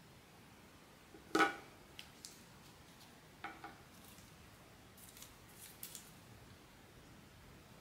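Small hard objects being handled during a blind box unboxing: one sharp click with a brief ring about a second and a half in, a second, softer ringing click a couple of seconds later, then a few light ticks near the end.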